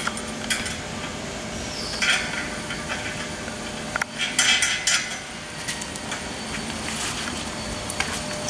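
Metal hardware clinking and scraping as bolts and washers are handled and a bolt is fitted by hand into a steel grille guard's mounting bracket: a few scattered clinks, grouped about two seconds in and again around four to five seconds.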